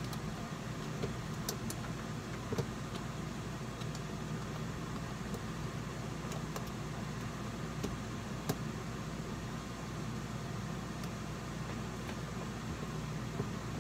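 Steady low mechanical hum, with a few faint metal clicks as a long nut is turned by hand onto the slideout gearbox's pulley rod.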